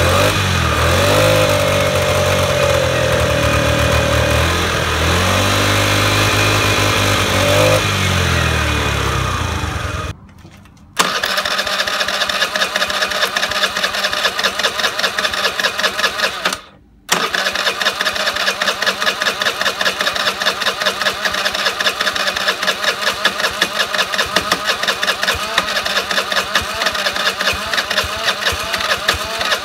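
Honda Today scooter's 49cc four-stroke single heard at the muffler, revved up and down for several seconds and then settling into a steady, fast-pulsing idle. The sound drops out briefly twice. The engine is one that has been failing to rev freely, blamed on carbon buildup.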